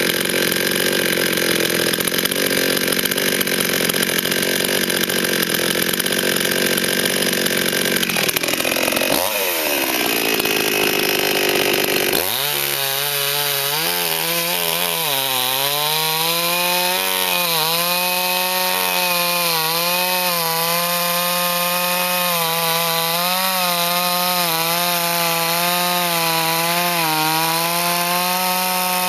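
Forward FGS-5204 two-stroke petrol chainsaw running hard and cutting wood, with a dense rasping sound. About nine seconds in, the revs drop away. From about twelve seconds the engine runs on with a clear, wavering note as the chain spins without cutting.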